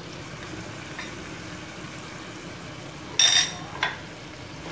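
A steady low hum, then about three seconds in a metal spoon clinks against the aluminium cooking pan with a brief ring, followed by a lighter second clink.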